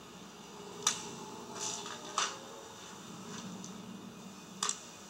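Three sharp clicks, about a second or two apart, with a few fainter ticks between them, over a low steady hum.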